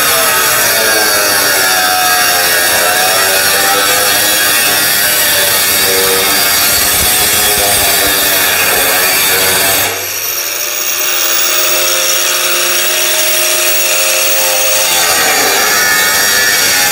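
Electric angle grinder with a cut-off disc cutting through metal, its motor pitch sagging and wavering under load. About ten seconds in the disc comes free and the grinder runs steady with a rising whine, then bears down into the cut again near the end.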